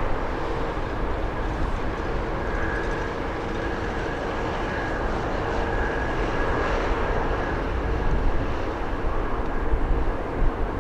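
Jet airliner's turbofan engines at takeoff power: a steady rushing noise with a faint, even whine running through it.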